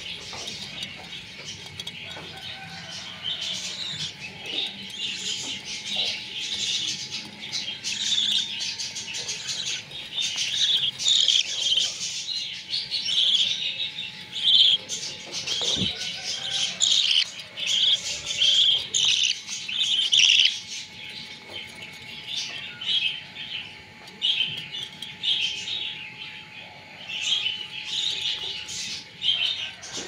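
Budgerigars chirping in a continuous stream of short, rapid calls, busiest and loudest through the middle. A single sharp click is heard partway through.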